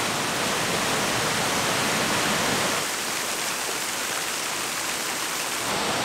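Waterfall close by, a steady rushing of falling water with no break. The low end drops a little about three seconds in.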